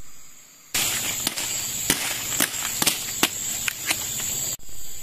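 A steady hiss full of scattered sharp pops and crackles, which starts abruptly about a second in and cuts off just as abruptly near the end, over a steady high drone of forest insects.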